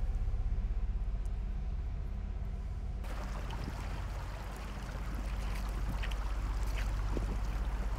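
Shallow stream water rushing and trickling over pebbles, starting about three seconds in, under a steady low ambient drone.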